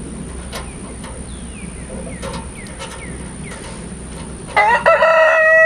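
A rooster crowing near the end: a short first note, then one long held call, loud over the faint clicks and short chirps before it.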